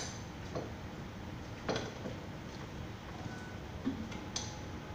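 A few light clinks and knocks, about five in all, as small glass vases and decoration pieces are handled and set down on a tabletop, over a steady low background hum.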